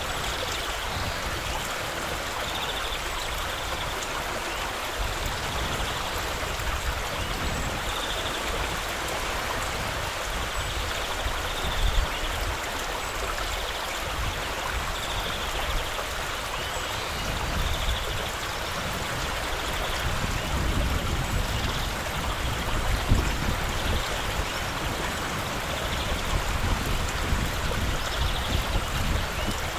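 Shallow river running over a gravel bed: a steady rush of flowing water, with a couple of brief louder moments in the middle.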